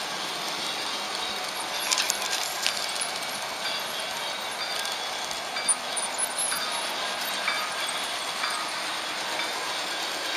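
Märklin HO-scale model train rolling along metal track, a steady rolling hiss from the wheels on the rails. A cluster of sharp metallic clicks comes about two seconds in as it runs over rail joints and points, with a few more near six seconds.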